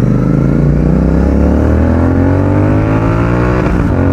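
Royal Enfield Continental GT 650's parallel-twin engine running through a Red Rooster Performance aftermarket exhaust, accelerating hard with the pitch climbing steadily. It upshifts near the end, where the note breaks off briefly and drops.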